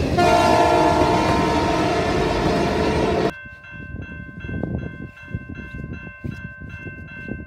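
Freight train's boxcars passing close by, a loud rumble of wheels on the rails with several steady high tones over it. About three seconds in it cuts off abruptly to a quieter mix of wind noise and steady ringing tones that pulse about twice a second.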